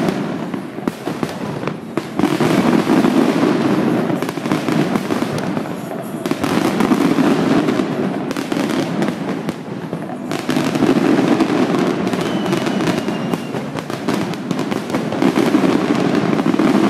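Fireworks display: a dense, continuous barrage of bursts and crackling over a deep rumble, swelling to louder peaks about every four seconds.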